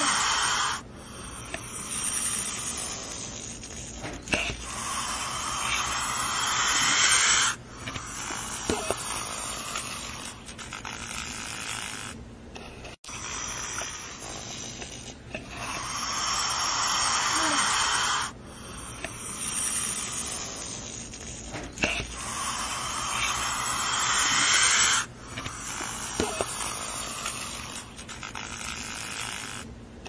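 Snake hissing in long, breathy hisses of about three seconds each, with softer hissing between them. The same run of hisses repeats about every seventeen seconds.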